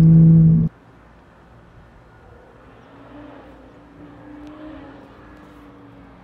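A 2013 BMW 135i's turbocharged inline-six with downpipe and axle-back exhaust, droning loudly and steadily inside the cabin for under a second. It then cuts to the same car heard faintly from far away as it drives along the road below, a faint engine note wavering in pitch.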